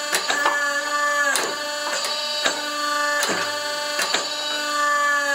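Home-built hydraulic forging press's electric motor and hydraulic pump whining steadily while the ram squashes a hot leaf spring, with sharp clicks about once a second. Right at the end the whine starts to fall in pitch as the pump comes under load.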